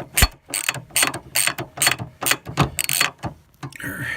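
Hand ratchet with a 5/16 socket clicking in short back-strokes, about three a second, as a fastener is run down snug.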